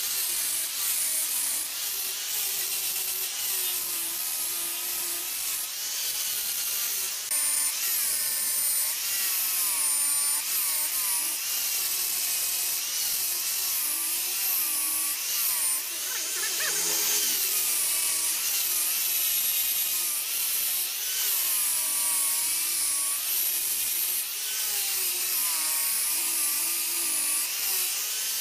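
Handheld electric grinder carving wood. Its motor whine wavers in pitch as the disc is pressed into the workpiece and eased off, over a steady gritty hiss of abrasion.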